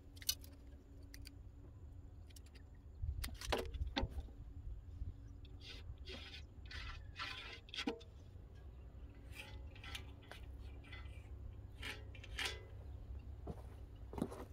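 Scattered, irregular light clicks, taps and scrapes of a tape measure and a long steel square being handled against a steel excavator bucket while a cut line is measured and marked out.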